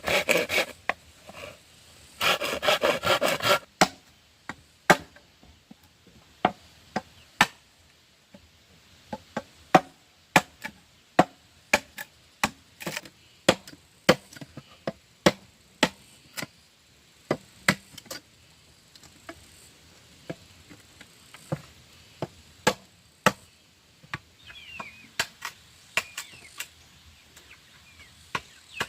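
A hand tool striking wood: a quick clatter of strikes early on, then separate sharp knocks, roughly one or two a second, at an uneven pace.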